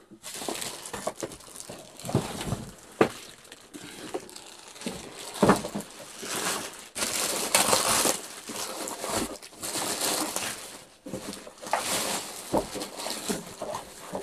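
Plastic wrapping crinkling and rustling, with cardboard scraping and scattered knocks, as a boxed robot lawn mower is pulled out of its packaging; the rustling is loudest about halfway through.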